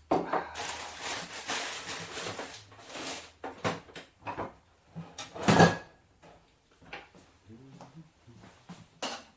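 Kitchen handling sounds: about three seconds of rustling and rummaging, then a run of separate knocks and clicks, the loudest about five and a half seconds in, like a drawer or cupboard being worked.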